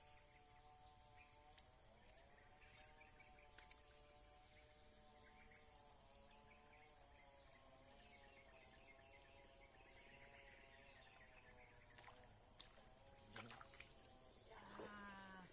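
Steady high-pitched insect drone, with a faint humming tone that wavers slightly in pitch under it for most of the time and a few sharp clicks near the end.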